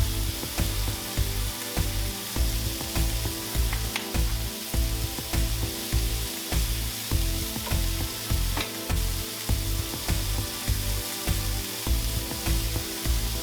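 Food frying on a flat-top griddle, a steady sizzle with a few sharp clicks. Background music with a steady bass beat about twice a second runs under it.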